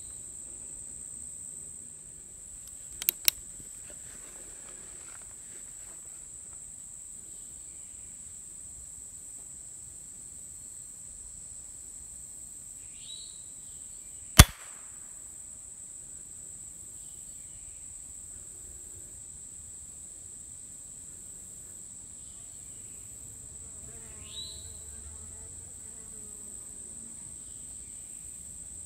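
A steady high drone of insects in summer woods. About three seconds in come two quick metallic clicks from the 1858 Remington percussion revolver being readied. About halfway through comes a single sharp snap: the percussion cap firing weakly without igniting the black powder charge, a misfire.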